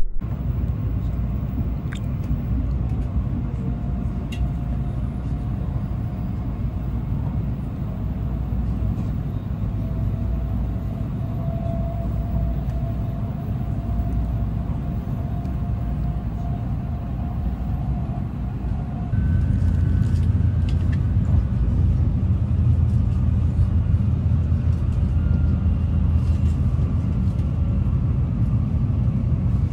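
Shinkansen running at speed, heard from inside the passenger cabin: a steady low rumble with a faint whine. About two-thirds of the way through, the rumble steps up louder and deeper.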